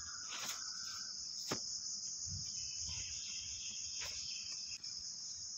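Quiet background with a steady high-pitched trill and a couple of faint clicks.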